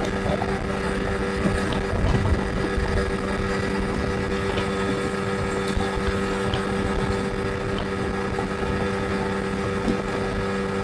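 A boat's outboard motor running steadily at constant speed while under way, with rushing wind and water.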